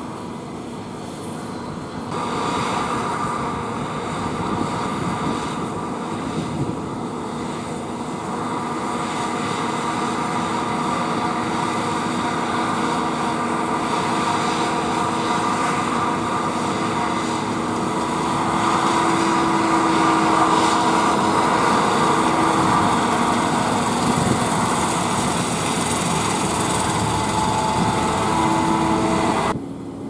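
Case IH Axial-Flow combine harvester cutting wheat: a steady drone of engine and threshing machinery with several held whining tones, growing louder as it passes close by, then dropping suddenly near the end.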